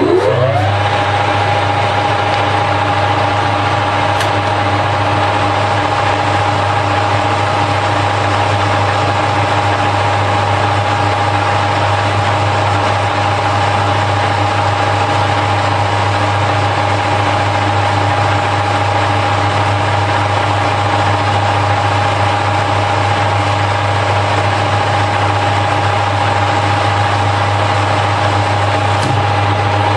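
Harrison L5 metal lathe spinning up to speed in the first second, its whine rising and then holding one steady pitch over a hum. It then runs steadily while turning bar stock down on power feed.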